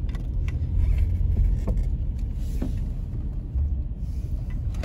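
Car's engine and tyre noise heard from inside the cabin, a steady low rumble as the car drives a U-turn around a roundabout.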